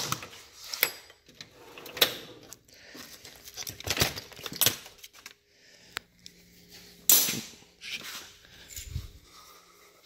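A steel rolling tool chest drawer is opened and rummaged through: a string of clicks, clinks and clatters of loose parts and cans, with one louder rattle about seven seconds in.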